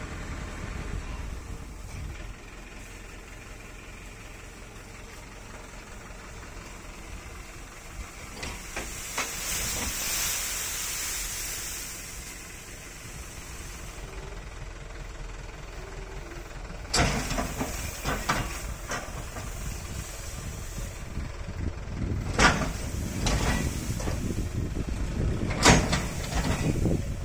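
Mahindra tractor engine running steadily while its tipping trailer tilts up and tips out a load of paddy straw bundles. A hissing rush rises and fades about ten seconds in, and several sharp knocks and crackles come in the second half as the load slides off.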